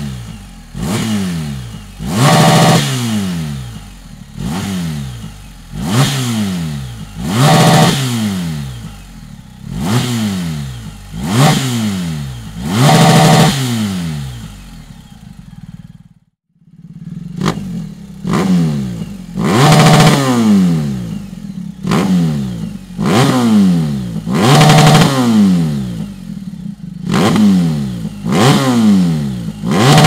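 2019 BMW R 1250 GS boxer-twin engine revved repeatedly at standstill through aftermarket Dominator silencers: an HP7, then after a brief break about 16 s in, a GP1. Each quick throttle blip rises in pitch and falls back to idle, roughly one every one and a half to two seconds.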